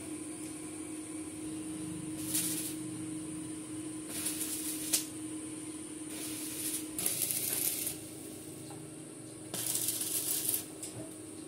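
Arc welding on steel window-grill bars: about five short bursts of welding arc, each under a second long, over a steady low hum.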